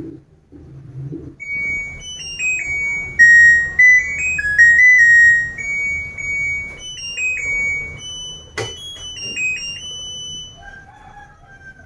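Washing machine's end-of-cycle alarm playing a short electronic melody of beeping tones, signalling that the wash is done. A single sharp click sounds partway through the tune.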